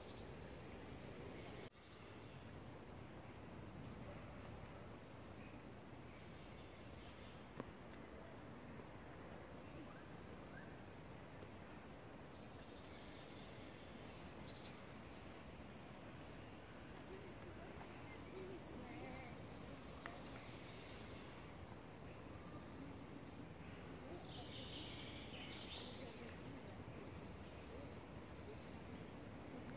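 A bird calling with short, high, thin notes, each falling slightly in pitch, repeated irregularly over a faint, steady outdoor hiss.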